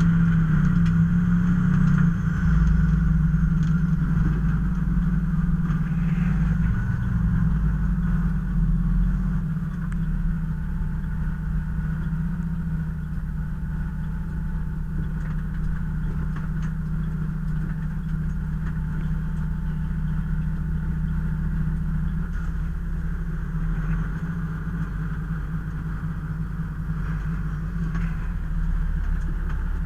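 Fire apparatus engine running steadily with a low hum and road rumble; it eases off and gets quieter about ten seconds in, then holds even.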